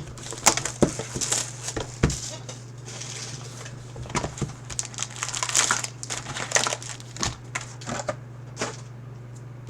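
Plastic wrapping crinkling and tearing in irregular bursts, with clicks of cardboard, as a sealed box of trading cards is unwrapped and opened. It thins out near the end.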